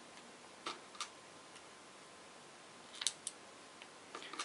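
A few light clicks and taps of small plastic parts being handled: a gear motor being fitted to a robot-car chassis plate by hand. Two clicks come just under a second in, two more about three seconds in, and a few soft ones at the end.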